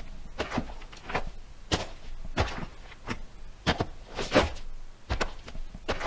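Foley sound effect of boots walking on rocky dirt: about nine footsteps, each a short sharp step, at an even walking pace.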